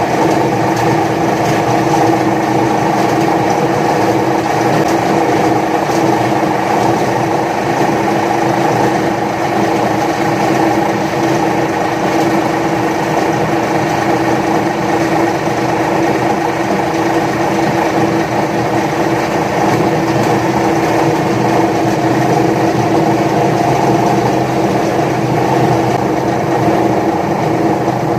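Electric paper shredder motor running steadily, a loud even hum with a constant whine.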